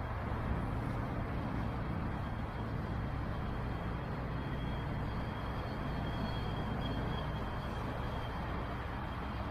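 Steady road traffic rumble from the surrounding streets and overpass. A faint, high, thin whine runs through roughly the middle of the stretch, from about four and a half to nine seconds in.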